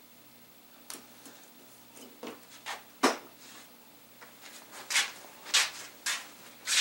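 Hands handling tape and parts at a workbench: a few scattered clicks, the sharpest about three seconds in, then a quick run of short, hissy rubbing scrapes near the end.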